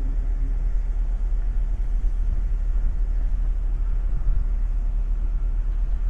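Steady low rumble of the ferry M/S Viking Amorella ploughing through sea ice.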